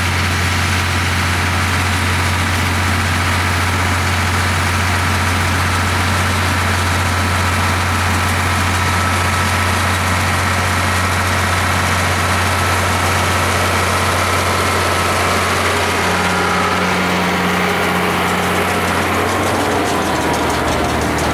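International Harvester 1066 tractor's engine running at a steady speed, a loud, even low drone. For a few seconds past the middle a higher hum joins in, and the note shifts slightly near the end.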